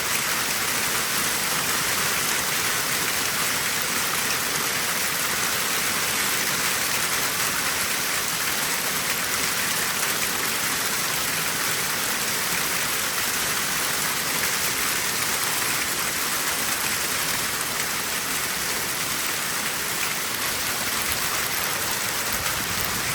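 Heavy rain mixed with hail pelting down in a steady, dense patter, without a break.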